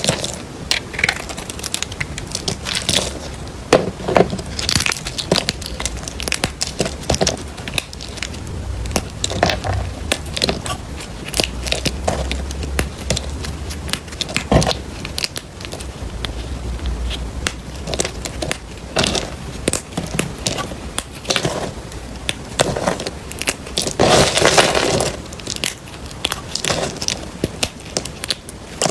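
A knife blade cutting through dry bar soap: a long run of irregular crisp crunches and crackles as the blade breaks through. The longest and loudest crunch comes a little over three-quarters of the way through.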